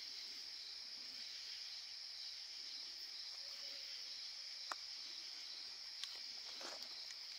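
Steady high-pitched chorus of night insects, with two faint clicks in the second half.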